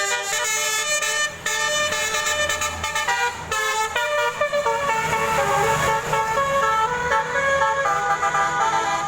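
Indonesian 'telolet' bus horn, a Basuri multi-tone horn, playing a tune: several horn notes sound together and change pitch step by step, with only a brief break about a second and a half in.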